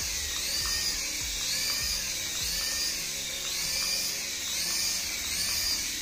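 Toy remote-control helicopter's small electric motor whining steadily as it lifts off and flies, over background music with a pattern that repeats about once a second.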